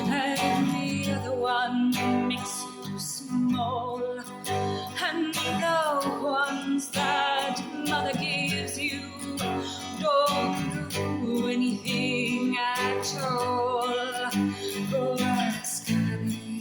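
A woman singing with vibrato over a strummed acoustic guitar.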